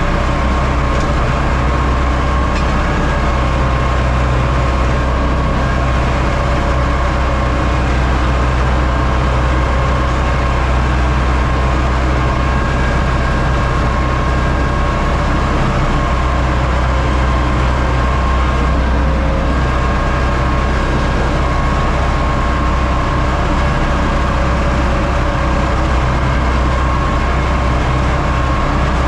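Universal U650 tractor's diesel engine running steadily under load, a constant low rumble with a steady whine above it and no change in pace throughout.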